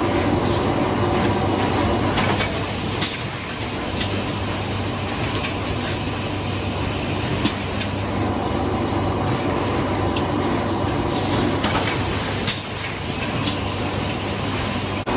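Cornetto cone filling and packing machine running: a steady mechanical drone with a low hum, broken by a few irregular sharp clicks and knocks from its moving parts.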